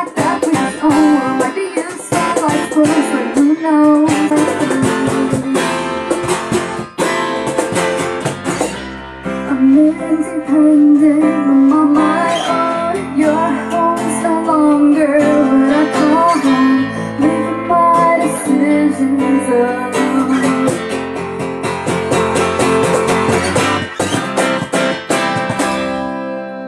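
Live acoustic band playing a song: strummed acoustic guitar and keyboard under a woman's sung melody, with hand percussion on a cajon. The music fades out near the end.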